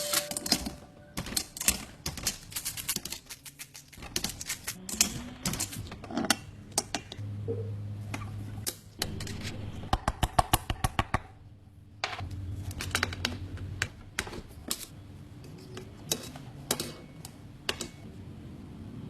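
Hand tools clicking and clinking on metal during engine installation work, with a quick run of even clicks about ten seconds in and a low hum now and then.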